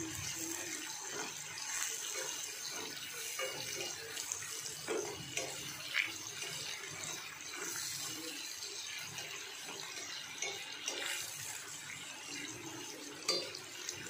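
Sliced shallots, ginger and whole spices sizzling steadily in hot fat in a stainless steel pan as the shallots fry toward golden, with a few short scrapes of a plastic spatula against the pan.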